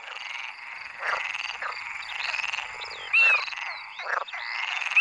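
Chorus of many frogs calling over one another at night, a dense steady mass of croaks with single louder calls standing out, one about three seconds in. It is the spring breeding chorus of the pond frogs.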